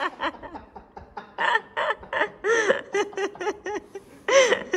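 People laughing in short bursts of chuckles, with a louder laugh near the end.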